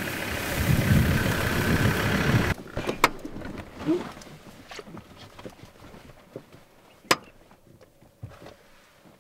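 Truck driving, its engine and road noise rumbling, cut off abruptly about two and a half seconds in. Quieter outdoor sound follows, with scattered sharp clicks and snaps, one louder about seven seconds in.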